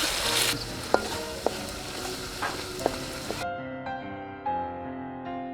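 Curry sizzling in a pot while it is stirred, the spoon knocking against the pot about four times. About three and a half seconds in, the sizzle cuts off sharply and soft piano music takes over.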